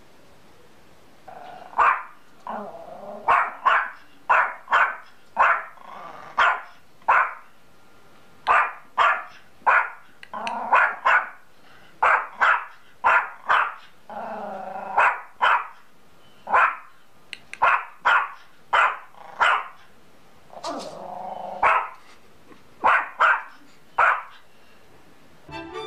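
Yorkshire terrier barking over and over in quick runs of short, sharp barks, with a few longer growly sounds between the runs.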